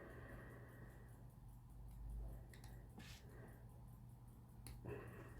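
Near silence with a low steady hum and a few faint, sharp clicks of small watchmaker's tools on a pocket watch movement.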